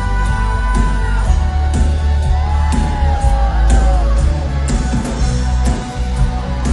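Pop song's instrumental passage with a steady beat and heavy bass under a gliding melody line.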